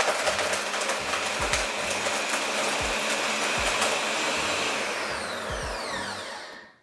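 Ninja countertop blender running at full speed, blending a smoothie with ice, oats and banana. Near the end its pitch falls as the motor winds down, and it stops.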